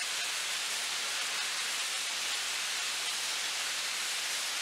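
Steady, even hiss of a robotic lance's high-pressure blasting jet playing on the steel surface of a wind-turbine tower section.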